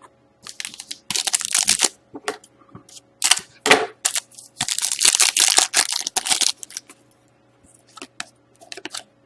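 Crinkling of a trading-card pack wrapper and cards being handled: a run of crackling, rustling bursts, loudest in the first six or seven seconds and softer near the end, over a faint steady hum.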